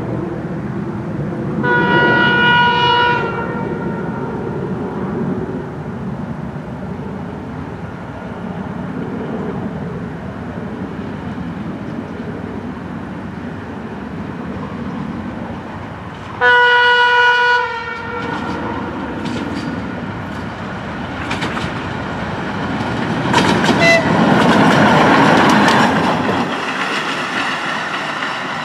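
TGM23V diesel shunting locomotive approaching at low speed, its diesel engine running steadily, sounding its horn twice in a single steady tone, each blast about a second and a half, one near the start and one about halfway through. Near the end the wheels clatter and grind louder as it rolls over the level crossing.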